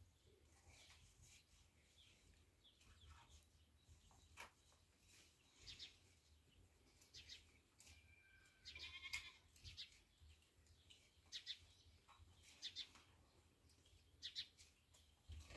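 Quiet room with faint, scattered animal calls from a distance, goat bleats among them. The clearest bleat comes about nine seconds in.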